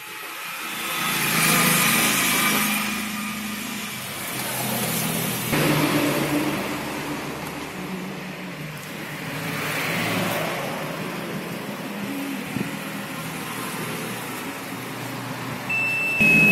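Motor vehicle engine running steadily, with broad noise swelling and fading twice. A short, steady high-pitched beep comes near the end.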